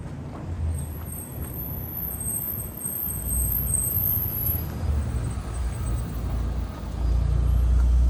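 Gasoline school bus engine running as the Blue Bird Vision bus pulls up, its low rumble growing louder and stepping up about seven seconds in as it comes close.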